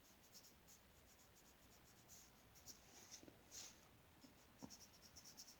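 Faint scratching of a pencil colouring on paper in short strokes, a little louder in a few strokes about three and a half seconds in and in a run near the end.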